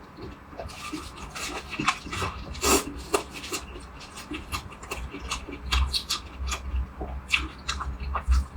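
Chewing and crunching of food close to the microphone: a run of short, irregular crunches and clicks over a low rumble.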